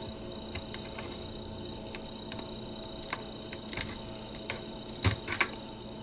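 Light, irregular plastic clicks and taps from hands working inside an opened laptop to free the loose SATA hard-drive connector; the two loudest clicks come about five seconds in.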